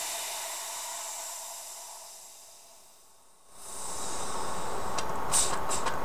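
Compressed air hissing out of a small airbrush compressor's tank through its pressure-release valve, fading away over about three seconds. Then the compressor motor starts up as the tank pressure drops and runs steadily, with a fast, even ticking.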